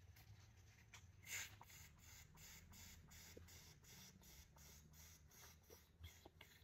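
Faint, rhythmic sips of air drawn in through lips pursed like a crow's beak, about three a second, with the loudest sip a little over a second in. This is Vatsara Dhauti breathing, in which the air is gulped down into the stomach.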